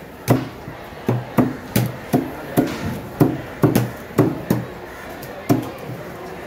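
Cleaver chopping a small ray fish into pieces on a thick round wooden block: a string of sharp chops, two or three a second, with a short pause a little after four seconds in.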